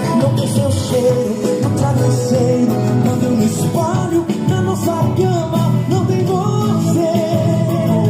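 A song with singing, played loud through an Imenso X74 speaker box with a 10-inch UXP subwoofer.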